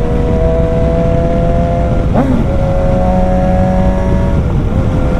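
BMW S1000 XR's inline-four engine running steadily at speed. Its pitch wavers briefly about two seconds in and dips slightly a little after four seconds.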